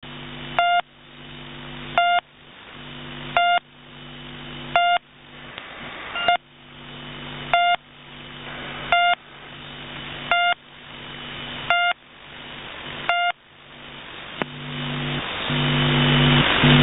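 The Pip shortwave buzzer station sending its channel marker: short beeps about 1.4 seconds apart, ten in all, received over shortwave radio, with static hiss and a low hum swelling between beeps. The beeps stop about 13 seconds in, and the static and hum grow louder.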